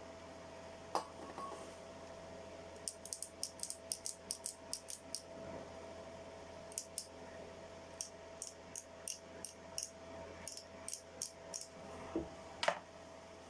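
Runs of small, sharp clicks at about three a second, with a knock about a second in and a louder knock near the end, from work on a power drill being taken apart for repair. A steady faint hum lies underneath.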